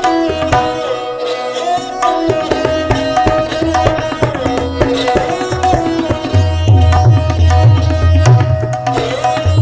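Gurbani kirtan music: a gliding melody line over drum strokes, with deep low drum beats coming in about six seconds in.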